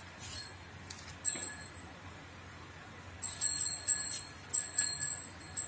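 A small metal bell ringing: one ring about a second in, then quick repeated rings in short bursts over the last two and a half seconds.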